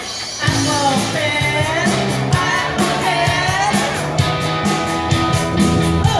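Live band music over a concert PA, with a man singing into a microphone; the drums and bass come in about half a second in and drop out at the very end.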